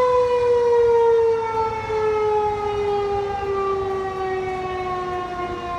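Outdoor tornado warning siren winding down after being switched off: one tone sliding slowly lower in pitch and fading gradually.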